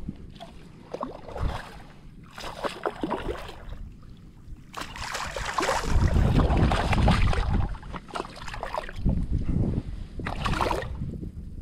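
Shallow water sloshing and splashing in uneven surges, loudest around the middle.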